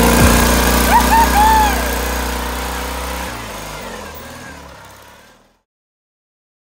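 Off-road riding mower's engine running, with a few short whooping shouts about a second in. It all fades out to silence by the end.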